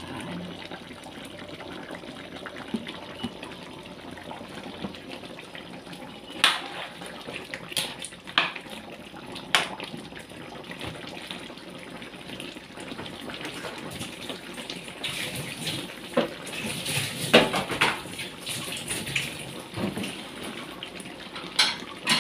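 Creamy chicken-and-pineapple stew simmering in a wok, a steady bubbling hiss broken by scattered sharp clicks that come more often and louder in the second half.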